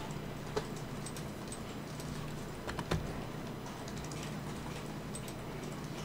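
A few scattered clicks of a computer mouse and keyboard over a steady low electrical hum.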